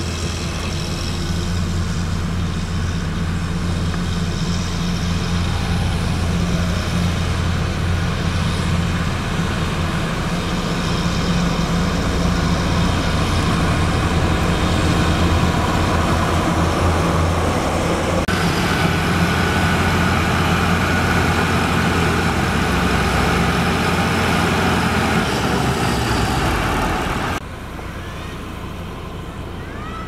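Heavy diesel road-paving machinery running steadily with a deep engine hum. The sound changes abruptly about eighteen seconds in and drops suddenly to a quieter level near the end.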